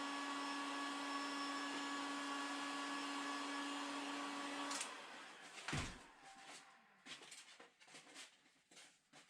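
Electric heat gun running steadily with a hum, shrinking heat-shrink tubing over a wiring loom, switched off suddenly about five seconds in. A thump follows, then light clicks and handling noises.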